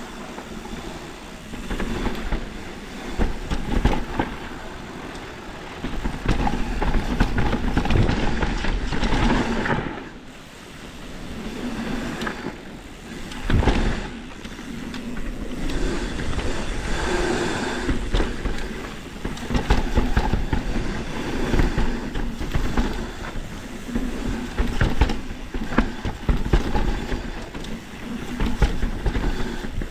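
Mountain bike descending a rough dirt trail: tyres rolling over dirt and rock, with the bike's chain and frame rattling and frequent sharp knocks from bumps and small features.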